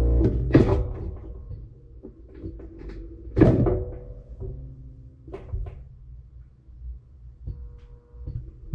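Washing machine on its load-sensing step: the motor hums as it turns the drum in short spins, with several knocks. The loudest knock comes about three and a half seconds in.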